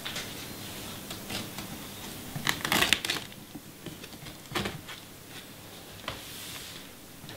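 Packing tape being picked at and peeled off a cardboard shipping box by hand: scattered scratches and crackles, with a louder burst of crackling about two and a half seconds in.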